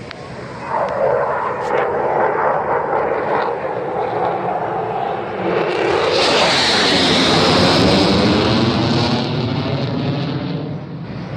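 Turkish Air Force F-16 fighter jet passing overhead in a display flyby: the jet noise builds about a second in, swells to a loud, hissing peak about six seconds in, and falls in pitch as it passes, then eases near the end.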